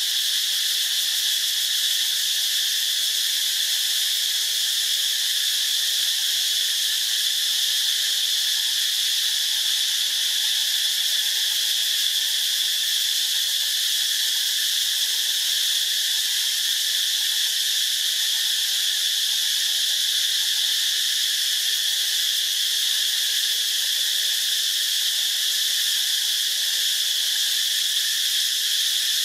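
Dense insect chorus: a shrill, steady drone that never lets up.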